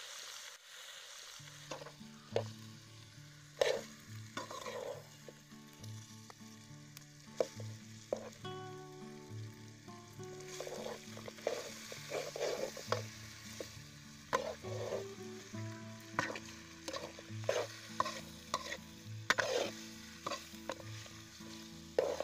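Pork pieces sizzling in a large aluminium kadai as they fry in their own rendering fat, stirred with a metal spoon that scrapes and clicks against the pan now and then.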